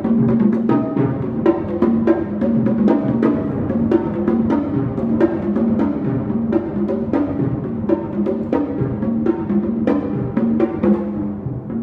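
Solo multi-percussion playing on a set of drums tuned to different pitches, struck in a fast, dense, unbroken run of strokes.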